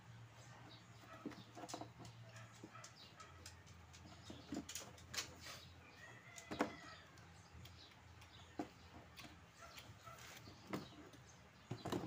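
Faint scattered clicks and knocks of hands working at a washing machine's hoses and wiring during disassembly, over a low steady hum. A louder, short bird-like call stands out about six and a half seconds in.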